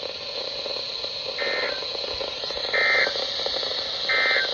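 Three short Emergency Alert System end-of-message data bursts (the SAME digital code squeals) over NOAA Weather Radio, about 1.3 seconds apart, closing a weekly test alert. Steady radio hiss runs underneath.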